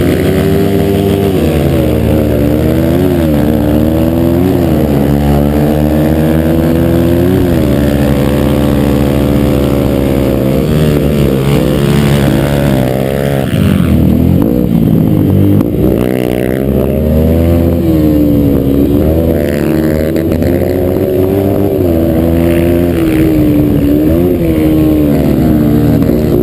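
Yamaha TTR-125's single-cylinder four-stroke engine revving hard from an onboard camera, its pitch climbing as it winds out and dropping back at each gear change or throttle lift, over and over through the lap.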